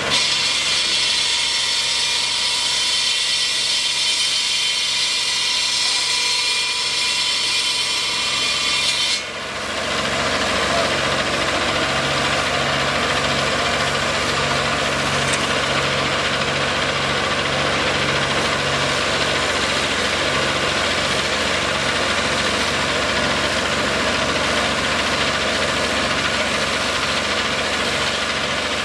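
Steady machinery noise: a high, even hiss that cuts off abruptly about nine seconds in, followed by an engine running at idle with a low, regular pulsing.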